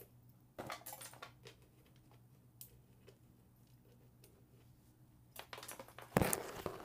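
Scattered light clicks and small knocks of plastic being handled, with a louder scraping rustle about six seconds in, over a faint steady low hum.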